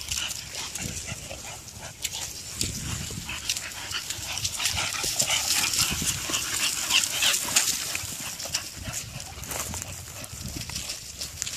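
Footsteps and dogs' paws crunching and rustling through dry grass and fallen leaves: a steady crackle of many small snaps with no barking.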